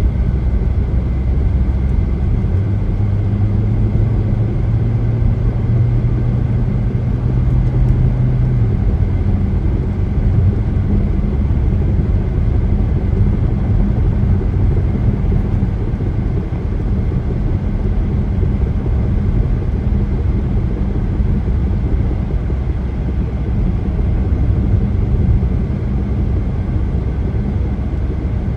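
Car travelling at highway speed: a steady low rumble of tyres and engine. A low droning hum sits over it for several seconds near the start, then drops away.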